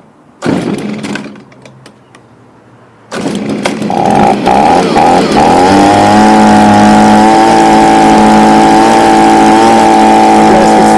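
Stihl BG55 leaf blower's small two-stroke engine being pull-started after a cold start on its new replacement carburetor: one pull about half a second in, then a second pull about three seconds in catches. It stumbles briefly, then settles into steady, loud high-speed running.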